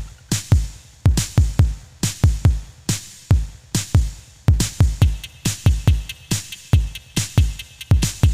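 Background electronic music with a drum-machine beat: deep kick drums that drop in pitch, with sharp snare or clap hits between them.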